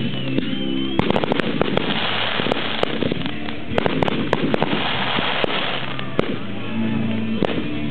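Fireworks display: shells and comets bursting in a rapid run of sharp cracks and bangs over a steady crackling hiss of glitter effects, with a short whistle near the start.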